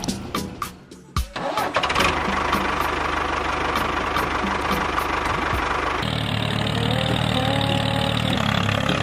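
A tractor engine starting: a few clicks, then it catches a little over a second in and runs steadily. The sound changes character about six seconds in. Music plays along.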